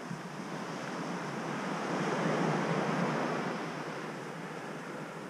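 Waves breaking and washing up a gravel beach, swelling to a peak about two seconds in and then fading.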